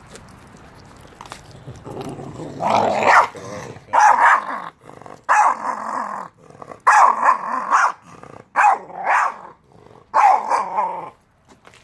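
Renascence Bulldogge puppies growling in about six loud bursts as they squabble over a raw turkey carcass. It is a noisy food-guarding display between littermates, not a real fight.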